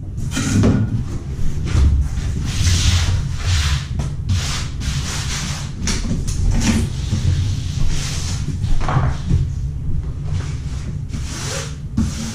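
Irregular scraping and rubbing strokes with a few light knocks, over a steady low rumble.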